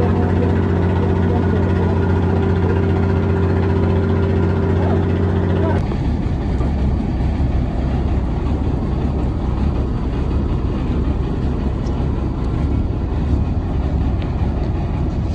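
Fishing boat's inboard engine running steadily with an even hum; about six seconds in, the sound changes to a rougher, lower rumble.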